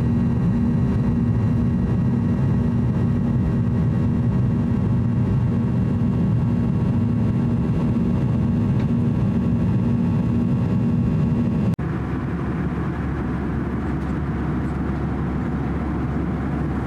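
Cabin noise inside a Boeing 737-800 in its climb after takeoff: the CFM56 turbofans running steadily, a loud rush with several steady tones. About twelve seconds in it cuts abruptly to a quieter, even cabin rush, as at cruise.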